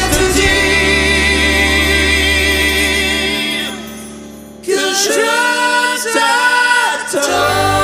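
Slow pop ballad music with held, wavering notes that fades out about three and a half seconds in. A second song then starts abruptly with a singing voice, and a bass line joins near the end.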